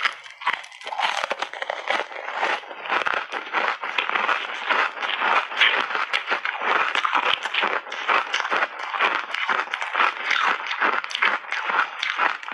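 Ice chips coated in matcha and milk powder being bitten and chewed close to a clip-on microphone: a dense, unbroken run of crisp crunches and cracks.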